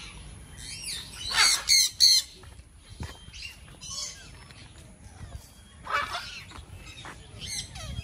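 Aviary parrots squawking: a series of sharp, harsh calls, loudest in a quick cluster of three or four about one and a half to two seconds in and again about six seconds in, with fainter calls between.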